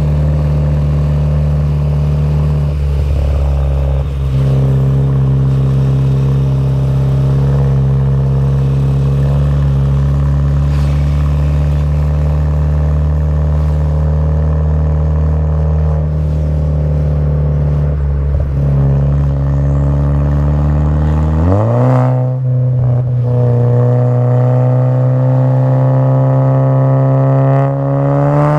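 Modified VW Jetta GLI Mk6's 2.0T turbocharged engine running through an aftermarket downpipe and cat-back exhaust, holding a steady low drone. Some twenty seconds in the revs climb quickly and hold at a higher pitch, then start to rise again near the end.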